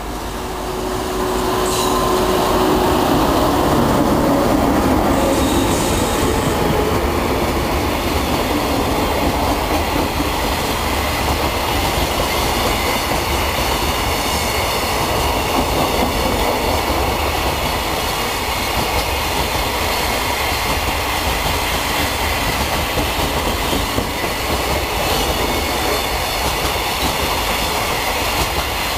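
EH500 electric locomotive hauling a freight train passes close by, getting louder over the first two seconds, then a long line of Koki container flatcars rolls past with a steady rumble and rattle of wheels on the rails.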